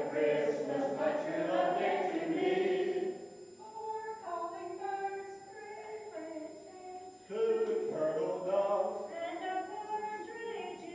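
Mixed group of older men and women singing a Christmas song together. The singing thins to fewer, softer voices for a few seconds in the middle, then comes back full.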